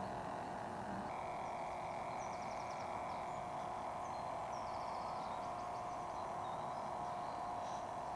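RC air boat's motor and toroidal propeller running with a steady whine, a higher tone joining about a second in. A bird chirps in short rapid trills twice.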